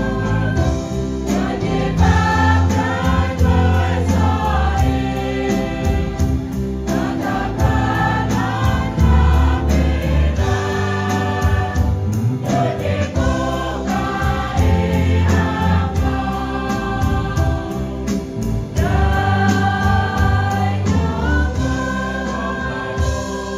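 Women's choir singing a hymn in held phrases, accompanied by guitar and a band with deep bass notes.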